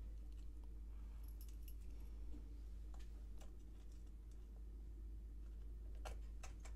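Faint small metallic clicks and taps of a jeweler's screwdriver working tiny screws into the metal front plate of a Kodak Brownie box camera, with two sharper clicks near the end, over a steady low hum.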